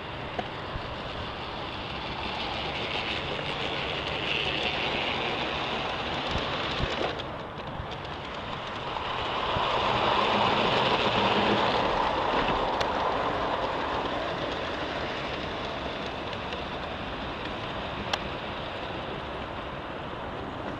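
G-scale model freight train running on garden track, hauled by a Canadian Pacific FA-1 diesel model: a steady rolling rumble and clatter of the wheels on the rails, growing loudest about halfway through as the locomotive comes close, with a single sharp click near the end.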